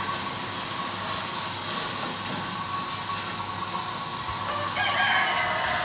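A steady background hiss, and near the end one long animal call with a slightly falling end.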